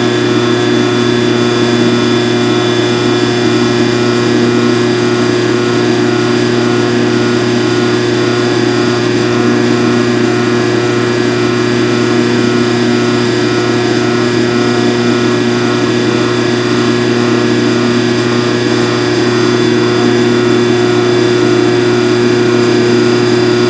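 Phase-O-Matic CNC phase converter running with a steady, loud electrical hum.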